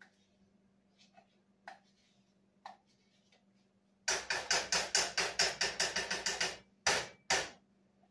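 A spice shaker of paprika being shaken hard over a pot: a rapid run of rattling shakes, about eight a second, starting about four seconds in and lasting some two and a half seconds, then two single shakes. Before it, a few faint ticks.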